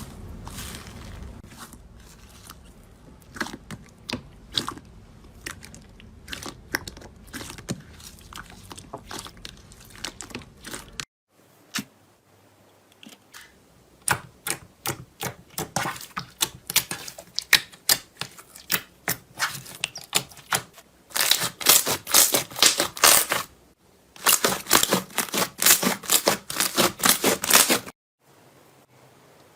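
Slime being pressed and worked by hand, making rapid runs of sharp clicking and crackling pops. The sound cuts out abruptly twice as the clips change, and the clicks are densest near the end.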